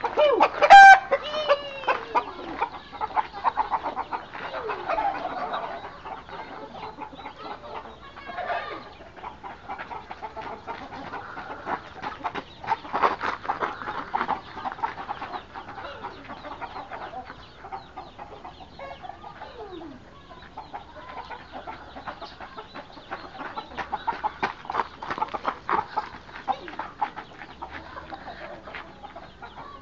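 Chickens clucking and calling, with a few longer pitched calls, over a steady scatter of short scratchy ticks. Louder stretches of quick footsteps on gravelly dirt come and go.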